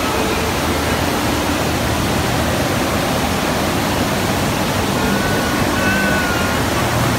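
Loud, steady rush of water from an indoor standing-wave surf simulator, its pumps driving a continuous sheet of water up the ramp.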